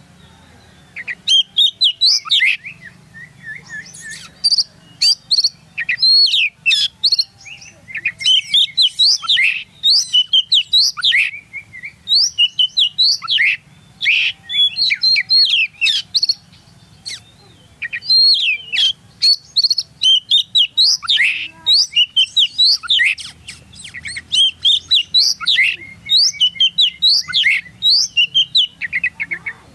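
Oriental magpie-robin (kacer) singing loudly and rapidly: runs of sharp, sweeping whistles and chirps in bursts of a few seconds, broken by short pauses.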